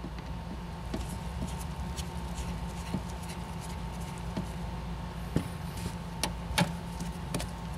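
Scattered small clicks and scrapes of a screwdriver turning a screw-type plastic trim clip in car trunk carpet, the sharpest pair about six and a half seconds in as the clip is pulled out, over a steady low background hum.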